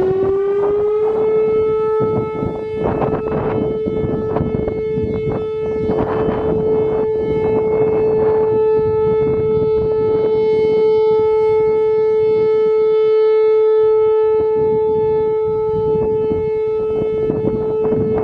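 Whelen WPS-4004 electronic outdoor warning siren sounding its steady alert tone at 435 Hz: the pitch finishes rising about a second in, then holds one steady tone with overtones. Gusts of wind noise hit the microphone underneath.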